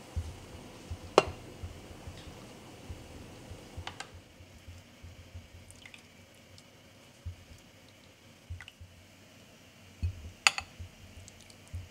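Kitchen handling sounds as a glass lid comes off a glass baking dish and a metal server lifts a baked meatball out and sets it on a ceramic plate: a few sharp clinks, the clearest about a second in and near the end, over soft low bumps and rustling.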